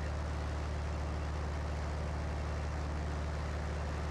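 Cessna 172's piston engine and propeller running steadily in flight: a constant low hum under an even wash of air noise.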